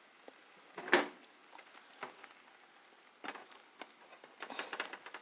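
Quesadilla frying quietly in a skillet on low heat, with one sharp knock about a second in and a run of small crackles and taps near the end as the filling is pushed back into the pan.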